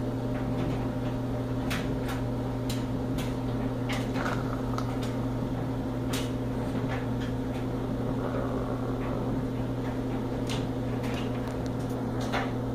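Steady low hum of a running household appliance, with scattered light clicks and taps.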